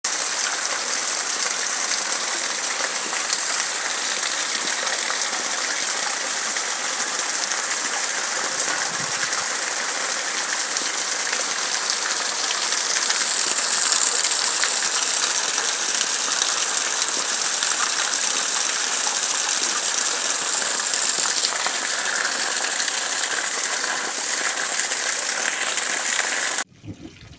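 Heavy rain falling steadily, with water gushing from a drainpipe spout, as one loud even hiss. It cuts off suddenly near the end.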